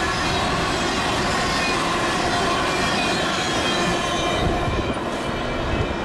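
Union Pacific intermodal freight train's cars rolling past, steel wheels on rail, with high squealing tones from the wheels over the rumble. The noise eases slightly near the end as the last cars go by.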